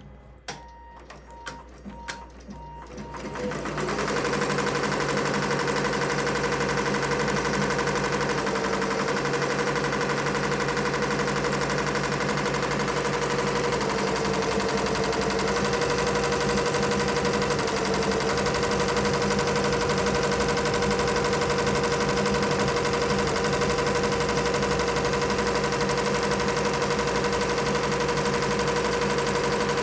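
Multi-needle embroidery machine: a few clicks and short beeps, then about four seconds in it gets going and runs steadily, needle stitching at high speed with a constant motor hum that shifts slightly in pitch now and then.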